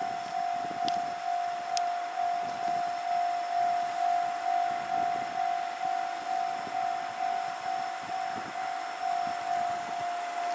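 Japanese railway level-crossing alarm ringing: an electronic bell repeating one steady pitched tone about twice a second. It signals that the crossing is closed for an approaching train.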